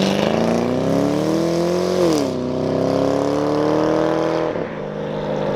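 Chevrolet Camaro V8 accelerating hard away, its pitch rising through one gear, dropping at an upshift about two seconds in, then climbing again before it fades into the distance near the end.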